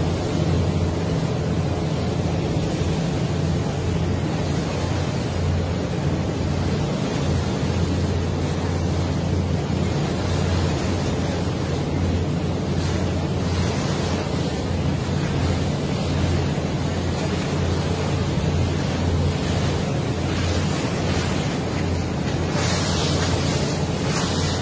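Steady low drone of a boat's engine under the rush of water along the hull and wind buffeting the microphone, with a louder hiss near the end.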